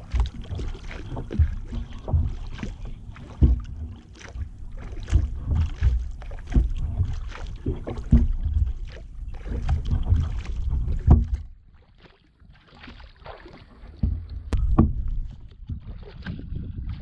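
A kayak being paddled: irregular paddle strokes with splashing and knocking over a low rumble, with a short lull about two-thirds of the way through.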